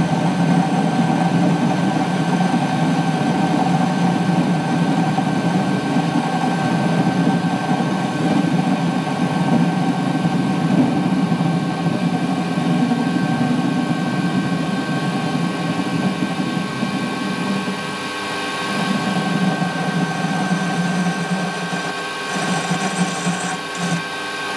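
Warco mini lathe running steadily, its motor and spindle gearing giving a constant hum with a high whine, while a light 0.1 mm facing cut is fed slowly by hand across the end of the spinning bar. The sound eases slightly in the second half.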